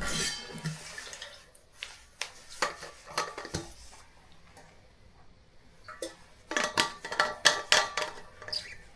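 Scattered clicks and knocks of things being handled, with a denser run of quick clicks near the end.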